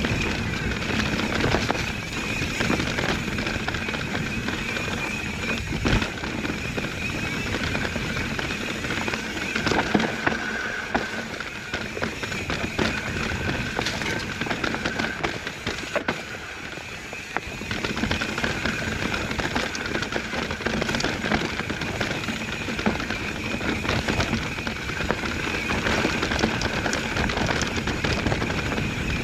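Santa Cruz Bronson mountain bike ridden over a dirt trail: a steady rush of tyre and trail noise with many small clicks and rattles from the bike, easing off briefly a little past the middle.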